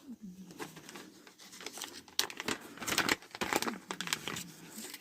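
A sealed plastic wipe packet crinkling and being torn open by hand, in a run of irregular crackles that are loudest in the middle.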